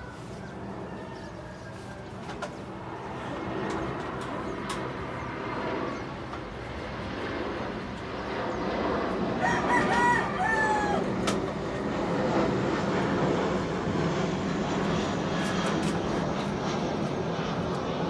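Jet airliner passing overhead, a steady rumble that grows louder and stays loud from about ten seconds in. A bird calls briefly about nine seconds in.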